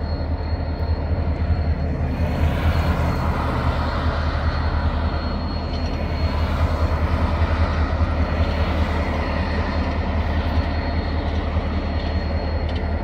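Escanaba & Lake Superior diesel locomotive 501 running at a road grade crossing: a steady low engine rumble, with a rougher mechanical and rail noise building up about two seconds in.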